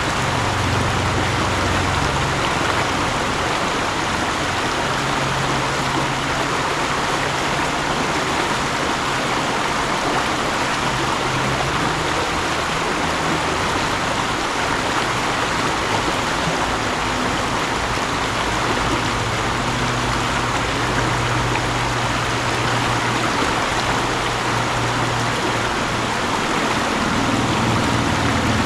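Mountain stream rushing steadily over rocks, a dense, even wash of water noise with a low churning rumble underneath.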